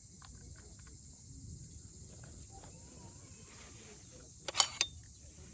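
Insects chirring in a steady high drone, with two sharp clicks close together near the end.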